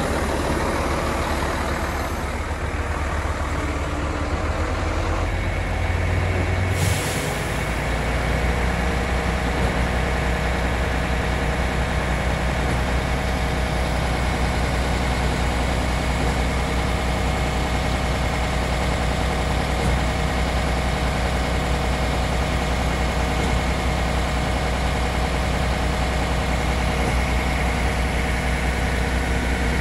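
Diesel engine of a truck-mounted concrete pump running steadily under load. About seven seconds in there is a brief hiss, and the engine's low hum shifts and then settles.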